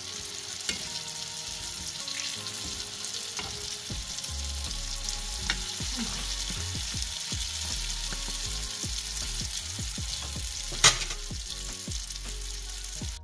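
Pirozhki deep-frying in hot vegetable oil in a pan: a steady sizzle with scattered crackles and light clicks, and one sharp, loud pop of spitting oil near the end.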